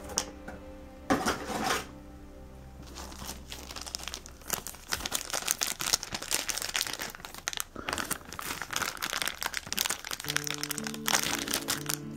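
Clear plastic packaging crinkling and crackling in rapid, irregular bursts as hands work a blister tray and plastic bag. Background music with held notes sounds near the start and again near the end.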